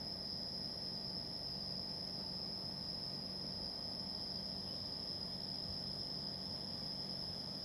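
Insects trilling in one steady, unbroken high-pitched tone over a faint low hum and hiss.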